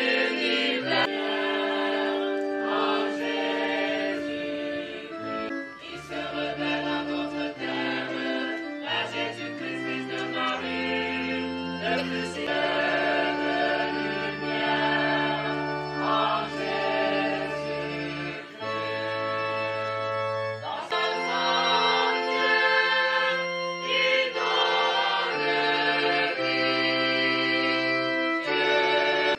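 Choir singing a hymn over a keyboard accompaniment that plays held, organ-like chords changing every second or two, with a steady bass line.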